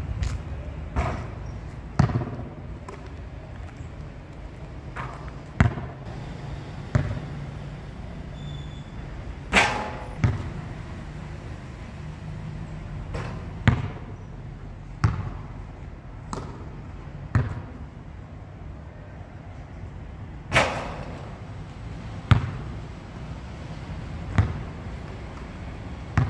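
A basketball bouncing on a hard outdoor court, sharp bounces coming irregularly about once a second. Two sharper, louder impacts stand out about ten and twenty seconds in.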